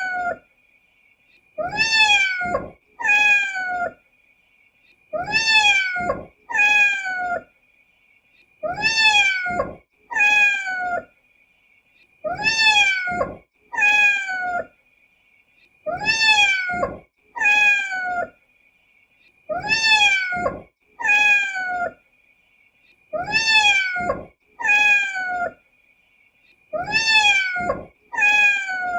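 Kitten meowing in pairs of short, high-pitched meows that rise and then fall, the pair repeating evenly about every three and a half seconds as a loop. A faint steady high tone runs underneath.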